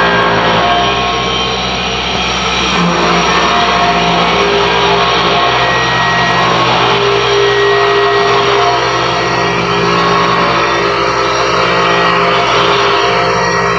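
CNC roller engraving machine running steadily: a loud, continuous mechanical noise with several steady whining tones from its motors and spindle.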